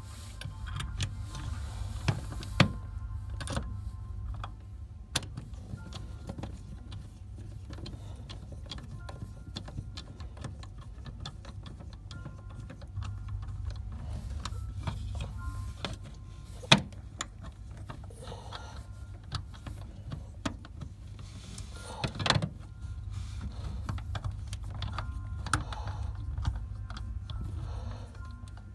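Plastic network wall plate and its cables being handled and pushed into place against the wall: scattered small clicks and rustles, with a few sharp clicks, the loudest about two and a half, seventeen and twenty-two seconds in, over a low steady rumble.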